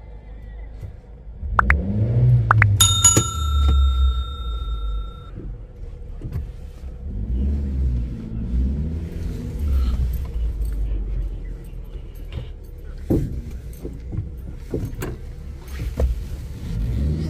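Subaru Pleo's small four-cylinder engine heard from inside the cabin, revving up and falling back in several swells. A few sharp clicks come about two seconds in, and a single bright ding about three seconds in rings for a couple of seconds.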